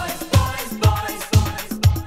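Italo disco dance track played from a 12-inch vinyl record: an instrumental passage with a heavy kick drum about twice a second, cymbals and synth lines.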